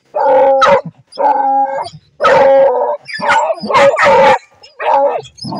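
Hunting dogs baying and barking into a burrow mouth, a run of about seven drawn-out bays with short gaps: the dogs have a paca holed up in its burrow.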